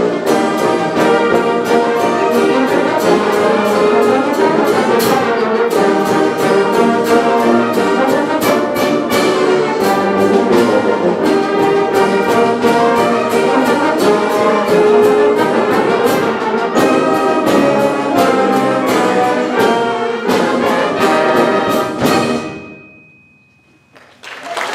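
Symphonic wind band of brass, woodwinds and percussion playing the final strain of a circus march, with drum and cymbal strokes keeping a steady march beat. The band cuts off on a final chord about two seconds before the end, a brief hush follows, and audience applause starts at the very end.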